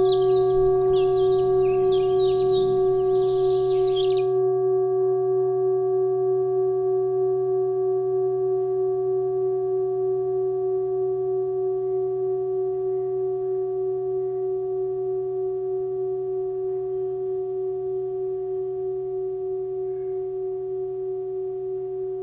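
A singing bowl ringing out, several steady overtones over a low hum, slowly fading with a slight wavering pulse. Birds chirp over it until about four seconds in.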